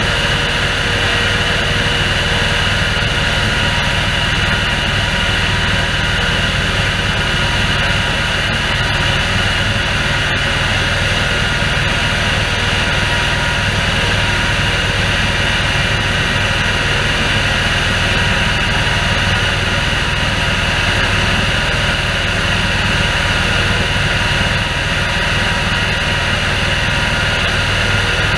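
Airblast orchard sprayer running steadily as it works the rows, its large fan blowing an oil spray over the trees: a constant engine hum under a steady fan whine.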